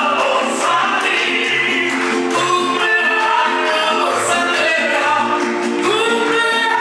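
Mariachi band playing and singing: a singer's melody over guitars, with short, regular bass notes from the guitarrón underneath.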